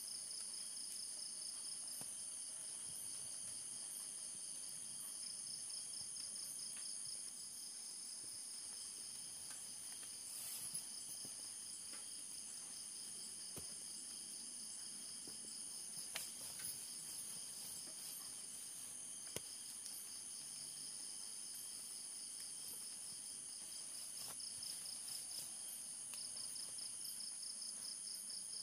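Several insects chirring steadily at different high pitches, one with a fast pulsing trill that drops out now and then, with a few sharp clicks along the way.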